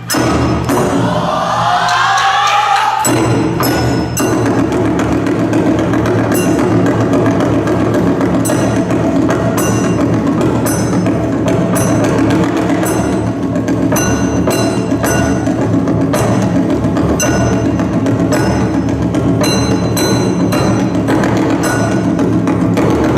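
Loud yosakoi dance music with a steady beat and sharp wooden percussion clicks. A rising sweep fills the first few seconds before the full beat comes in at about three seconds.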